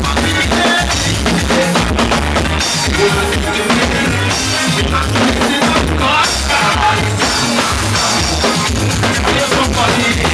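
Loud soca music with a driving steady beat.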